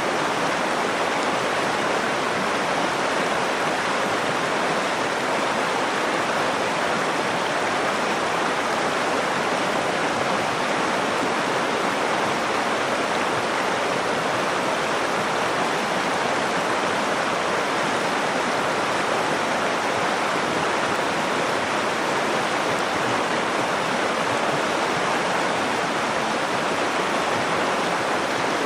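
Nakdong River water flowing in a steady, unbroken rush.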